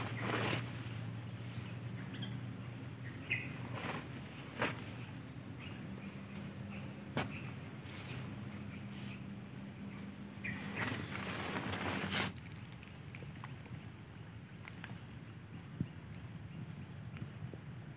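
Steady high-pitched chorus of forest insects, with a few soft rustles and clicks from tent fabric and poles being handled. About twelve seconds in the sound drops abruptly and the highest part of the insect hum stops.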